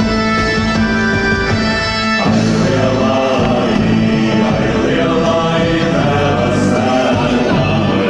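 Folk dance music with instruments holding notes. About two seconds in, it cuts abruptly to a group singing along with the instruments.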